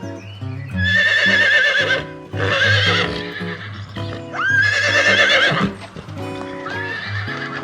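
An animal calling four times, each call long with a wavering, shaking pitch, over background music.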